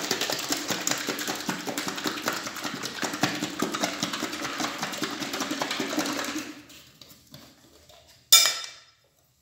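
Milk sloshing and rattling in a bottle that is shaken hard for about six and a half seconds. Near the end comes a single sharp, loud click as the bottle's yellow cap is snapped open.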